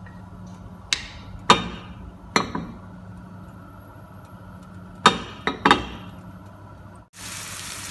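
About six sharp clinks with short ringing, three in the first two and a half seconds and three more around five to six seconds, over a steady low kitchen hum while oil heats in a frying pan. About seven seconds in, loud sizzling begins: chopped onions frying in hot oil.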